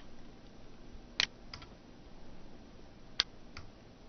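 Computer mouse button clicking twice, about a second in and about three seconds in, each a sharp press followed a moment later by its release, as a text box is selected and dragged larger. Faint room noise between.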